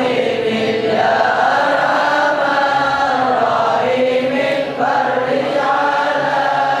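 A group of voices chanting together in long, wavering held notes, phrase after phrase, in the manner of Islamic devotional chant.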